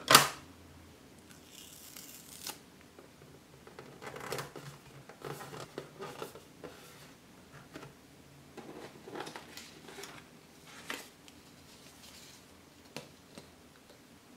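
Plastic parts of a hand-cranked toy ramen noodle maker being handled: one sharp plastic snap at the start, then scattered clicks, knocks and rustles, with paper booklets handled near the end.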